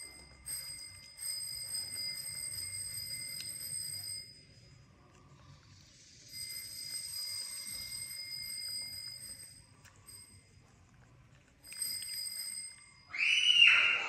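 A high, steady ringing tone with several pitches, heard three times for a few seconds each, over a low hum. Just before the end comes a loud cry that falls in pitch.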